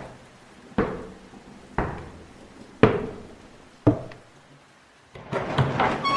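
Slow, evenly spaced footsteps, about one a second, each with a short hollow echo. About five seconds in, the steps give way to a busier, continuous sound.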